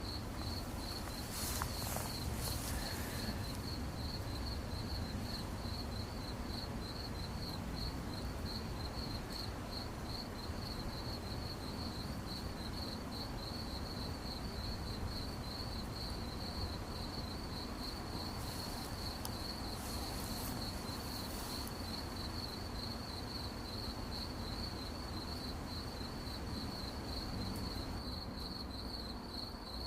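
Crickets chirping in a steady, rapidly pulsing high trill that carries on without a break, over a low background rumble. Twice a brief higher hiss joins in.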